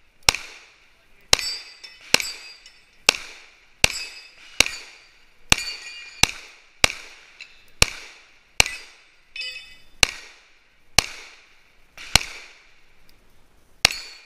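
Semi-automatic pistol firing a steady string of about fifteen shots at roughly one a second, each shot followed by a short metallic ring from steel targets being struck.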